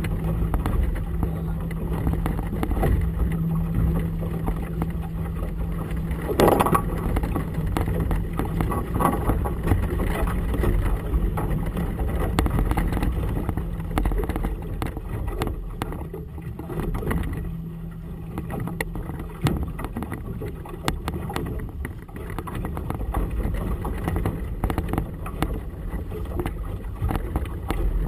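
Outboard motor running with a steady low hum, under a constant rumble of water slapping the boat's hull in a choppy harbor, with one louder slap about six seconds in.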